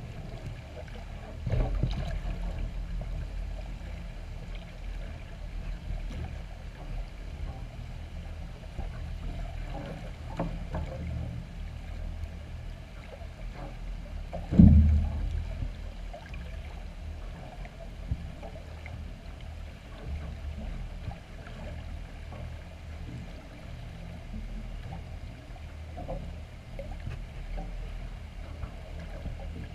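Underwater sound picked up through a GoPro's waterproof housing: a steady low rumble of moving water, with a few dull knocks, the loudest about fifteen seconds in.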